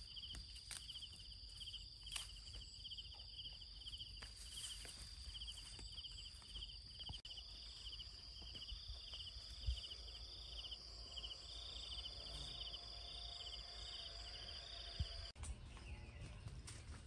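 Insects chirping: a steady high whine together with a regular pulsing chirp just below it, both cutting off suddenly about fifteen seconds in.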